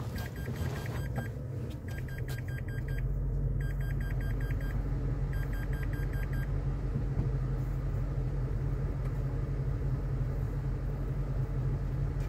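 A loaded truck's engine running steadily, its low hum rising about two seconds in. Over it a high electronic warning chime beeps in four quick bursts of about six beeps each, roughly every second and a half to two seconds, then stops partway through.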